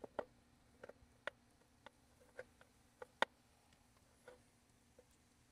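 Faint, irregular clicks and taps of plastic connectors and wire bundles being handled and pushed back into an e-bike's controller compartment.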